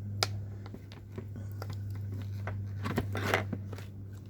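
Small metal clicks and scrapes from the hardware of a roller-skate truck being handled and fitted, with a sharp click just after the start and a denser rattle of scraping about three seconds in. A steady low electrical hum runs underneath.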